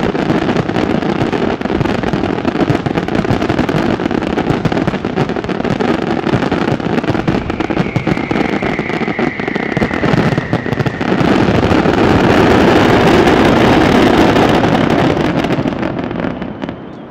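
Fireworks display: a dense, continuous barrage of bangs and crackling, with a faint falling whistle about eight seconds in. It swells louder past the middle, then dies away near the end.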